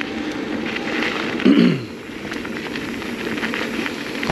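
Mountain bike tyres rolling over a dirt and gravel singletrack, a steady crackling rattle of the bike on the trail. About a second and a half in comes a short sound falling in pitch, the loudest moment.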